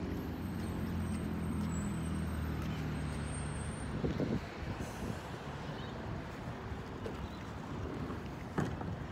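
Diesel engine of an old Isuzu rear-loader garbage truck running as the truck pulls away down the street, its engine note dropping away after about three and a half seconds. A couple of short knocks, about four seconds in and near the end.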